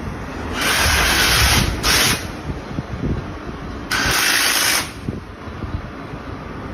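Three loud bursts of hissing, the first two close together and the last about a second long, over a steady low machinery rumble.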